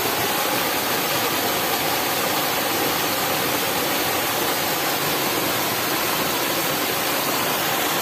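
Waterfall: water pouring and splashing over rock in a steady, even rush.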